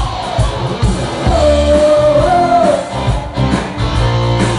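Live rock band playing with a singer: a sung line with long held, wavering notes over guitar, bass and drums.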